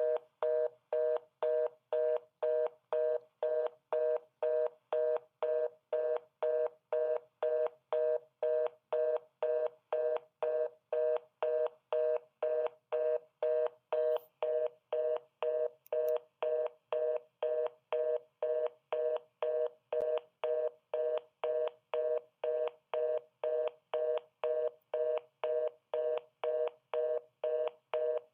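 Telephone busy tone: a steady two-tone beep switching on and off evenly, about twice a second, over and over.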